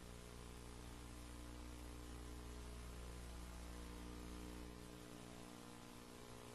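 Faint steady electrical hum with hiss, and no speech. The deepest part of the hum drops away about five seconds in.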